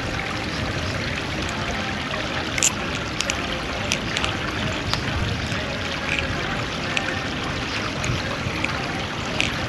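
Creek water flowing steadily over rocks, with scattered sharp metallic clicks as a balisong (butterfly knife) is flipped and its handles clack against each other.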